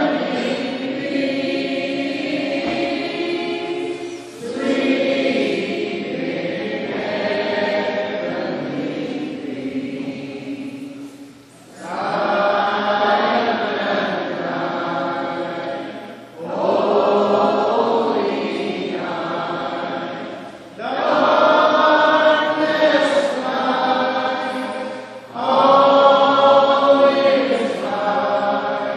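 Mixed choir of men and women singing together, phrase by phrase, with short breaks between the lines.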